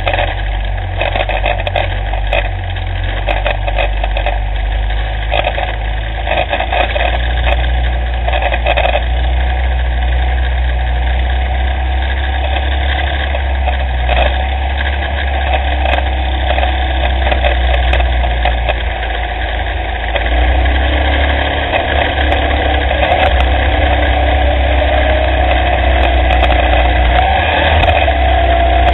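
Engine of a small off-road race car, heard from a camera mounted on the car, running steadily over rough dirt. Near the end the engine note rises as it speeds up.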